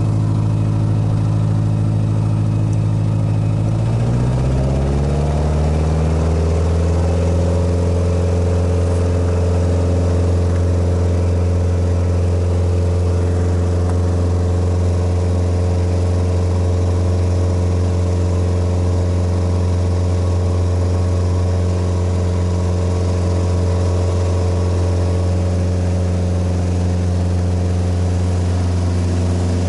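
Light aircraft's piston engine and propeller heard from inside the cockpit. About four seconds in the engine note rises over two or three seconds as power comes up, then runs steadily at the higher setting.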